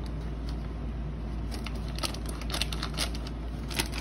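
Packaging being handled and opened: a run of small clicks and crinkles from about halfway in, over a steady low rumble.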